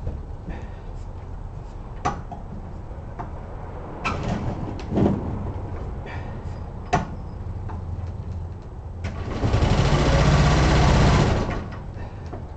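Shindaiwa 85cc four-stroke engine being hand-started by flipping its propeller, with scattered knocks from the flips. About nine seconds in it catches and runs for a couple of seconds, then dies.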